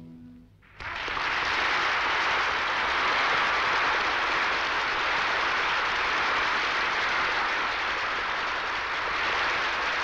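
The orchestra's last held low note ends, and under a second in applause breaks out suddenly: a large concert audience clapping in a dense, steady ovation.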